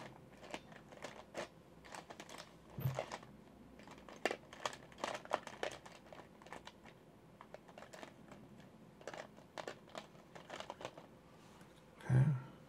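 Off-camera handling of small objects: scattered light clicks and crinkles, with a louder knock about three seconds in and the loudest one near the end.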